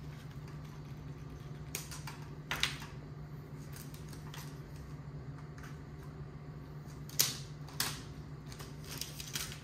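Scattered clicks and rustles of a plastic console trim piece and its vinyl wrap being handled, pressed down and set on a table with small tools, over a steady low hum. The sharpest click comes a little after 7 seconds.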